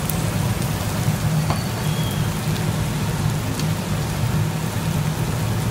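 Meat sizzling steadily on a Korean barbecue grill plate, a constant crackling hiss over a low steady hum.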